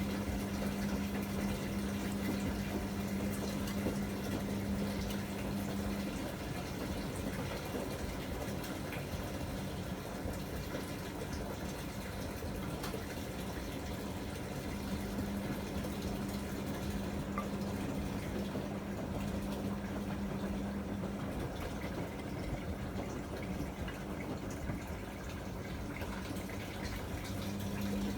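Miele MedicWash W2585 front-loading washing machine running a wash cycle: a steady sound of water running and sloshing inside the machine, with a low hum that sounds for several seconds, stops, and comes back twice.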